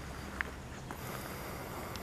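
A light footstep on cracked concrete about half a second in, over a low rumble on the microphone; a faint high-pitched whine joins about a second in.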